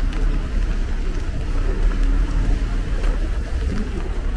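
Rainy city street ambience: a steady low rumble of road traffic under an even hiss, with a few faint ticks.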